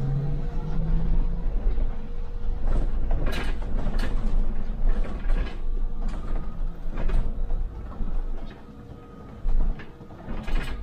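MAN Lion's City hybrid city bus running, heard from the driver's cab: a deep rumble with repeated knocks and rattles from about three seconds in, and a steady whine in the first few seconds. The rumble drops away about eight seconds in.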